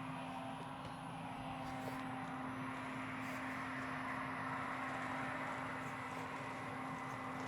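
Steady drone of a farm crop sprayer running: one constant engine hum under a broad, even hiss.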